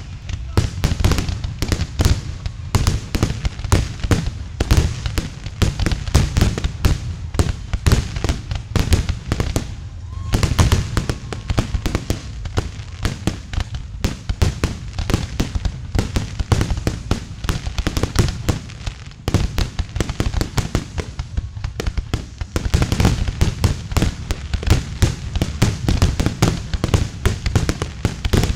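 Aerial fireworks launching and bursting: a dense, rapid string of pops and bangs. It thins briefly about ten seconds in and again around twenty seconds, then picks back up.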